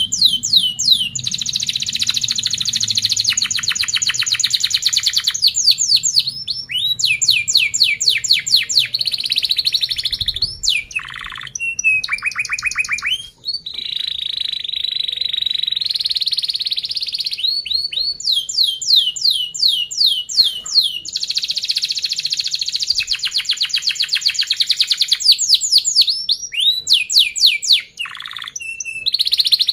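Yellow domestic canary singing loudly and almost without pause: runs of quick falling chirps alternate with fast, tight rolls, broken by a few short gaps.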